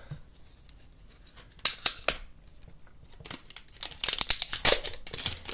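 Protective plastic film being peeled off a new phone's glass: a few sharp crackles about two seconds in, then a dense run of crackling toward the end.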